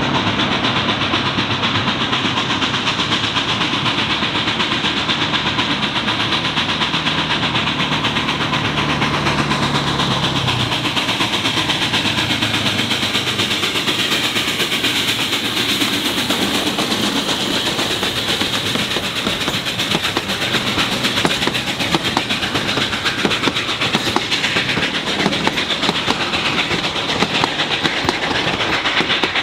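Durango & Silverton narrow-gauge steam locomotive 473, a K-28 2-8-2, running up close and passing with its train, followed by the passenger coaches rolling by. In the second half the wheels click sharply and often over the rail joints.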